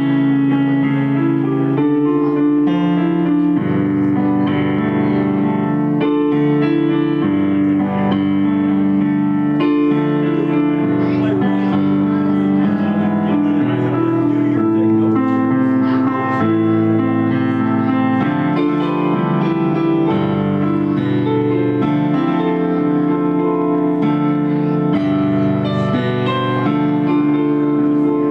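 Electric keyboard played live, held chords changing every second or two with a melody line over them.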